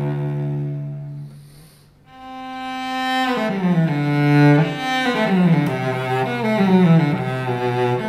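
Solo cello by Pasquale Sardone, Francesco Ruggeri model, played with the bow. A held low note fades away in the first two seconds. After a brief pause a new phrase opens on a held note, then moves into runs of notes stepping downward.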